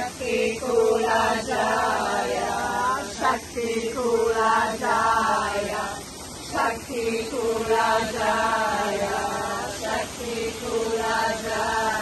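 A group of women's and men's voices chanting together in a slow, repeated melody, in about four long held phrases of two to three seconds each, over the steady rush of falling water.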